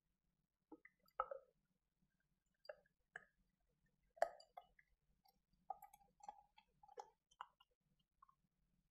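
Faint, irregular plops and gurgles of a thick blended yogurt drink pouring from a blender jar into a tall glass, the loudest a little past four seconds in.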